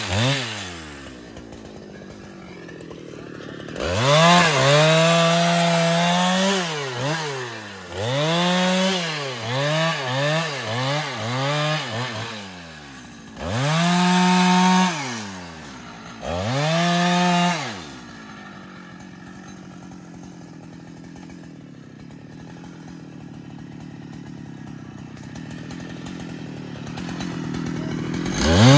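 Large two-stroke chainsaw cutting into a tree trunk, revved to full throttle in short bursts several times, with quick blips of the throttle in between. It drops to a steady idle for a long stretch, then revs up again near the end.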